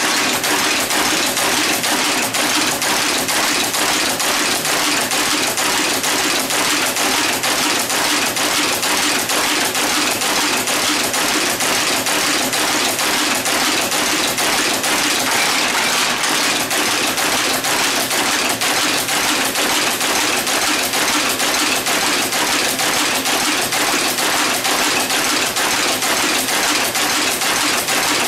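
Monotype type-casting machine running: an even, rapid mechanical clatter of repeated metallic clicks as it casts type from molten antimony-tin type metal.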